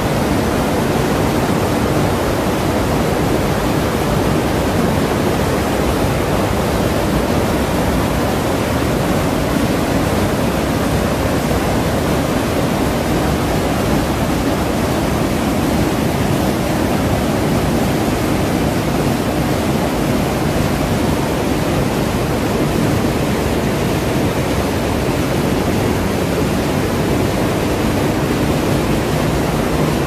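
Waterfall pouring down a rock face into its plunge pool: a loud, steady rush of falling and churning water.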